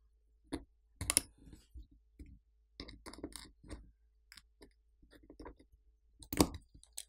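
Small metal clicks and scrapes as a metal shield plate inside a smartphone is pried and worked loose from its side catches with a metal tool and fingertips. The clicks are scattered and irregular, with sharper ones about a second in and again near the end.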